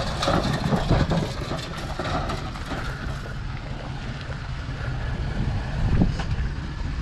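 Vehicle engine running slowly while pushing another car bumper to bumper, with wind noise on the microphone.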